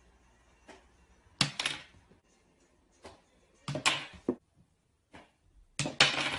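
Sharp knocks and clacks of hard objects, in three short bursts about two seconds apart, the last the loudest.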